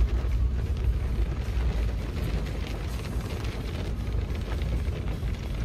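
Heavy rain heard from inside a moving car: a loud, steady low rumble of road and wind noise, with raindrops spattering on the glass.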